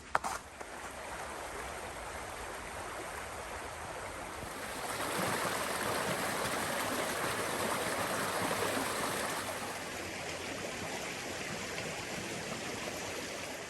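Running water of a creek, a steady rushing sound that swells louder for a few seconds in the middle and then settles back.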